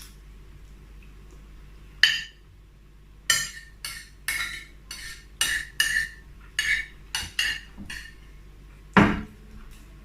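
Cutlery clinking and scraping against a plate while eating: a run of short, sharp clicks and scrapes from about two seconds in, with one louder clink near the end.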